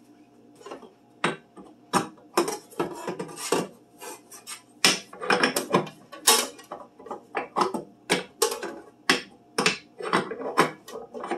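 Metal bread pan being fitted and locked into a bread machine: a string of irregular clicks, clunks and rattles, with its wire handle knocking against it, starting about a second in.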